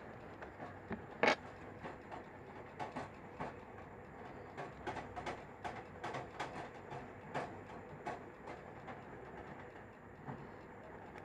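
Scattered light clicks and taps from handling a phone and small repair tools, irregular, with one louder click about a second in.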